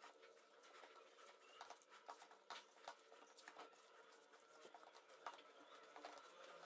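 Faint, irregular soft pats and squelchy clicks of a hand kneading and mixing minced chicken with spices in a stainless steel plate, over a faint steady hum.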